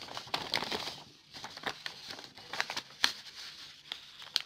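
A sheet of paper rustling and sliding under the hands as it is shifted on the desk, with a few sharp clicks, the loudest about three seconds in and near the end.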